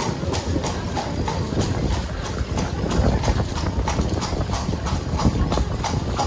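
Carriage horse's hooves clip-clopping at a steady walk on cobblestones, about three strikes a second, over the low rumble of the carriage wheels rolling on the cobbles.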